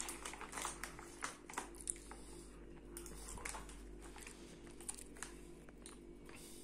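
Plastic popcorn bag crinkling in short sharp crackles as a hand rummages in it, busiest in the first two seconds and sparser after, with faint crunching of popcorn being eaten.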